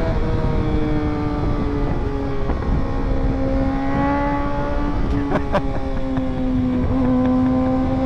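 Motorcycle engine running at steady road speed under a rush of wind noise, its pitch dipping and rising slightly a few times. A few brief clicks come about five and a half seconds in.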